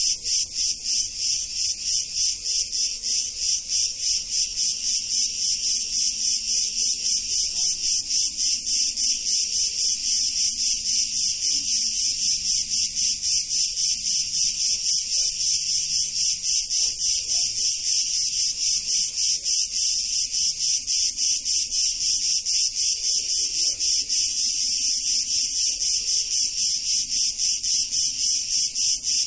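Cicadas singing in a dense chorus: a loud, high buzz that pulses evenly several times a second without a break.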